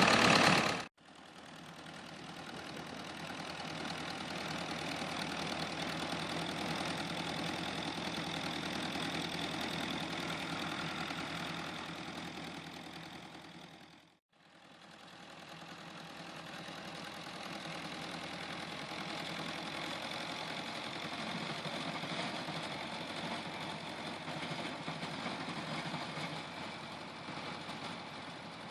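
An engine running steadily. A louder sound cuts off abruptly just under a second in, then the engine fades in, fades out about halfway through and fades back in.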